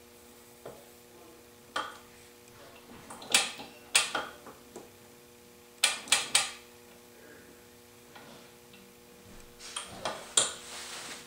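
Metal engine parts and hand tools clinking and knocking against the dismantled scooter engine. There are scattered sharp clinks, three in quick succession about six seconds in and two more near the end.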